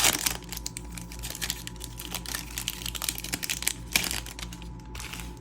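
Plastic wrapper of a trading-card pack crinkling and crackling as fingers work at it, trying to tear it open, with a few louder crackles.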